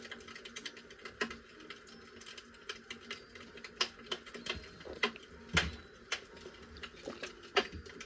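Irregular small clicks and crackles of a plastic squeeze bottle squirting dye onto tied, bundled fabric, a few louder pops among them.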